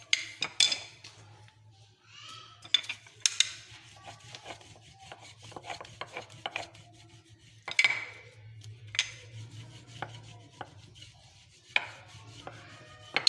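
Wooden rolling pin rolling slices of bread flat on a stone countertop: irregular rubbing and scraping strokes with several sharp knocks as the pin meets the counter. A faint steady low hum runs underneath.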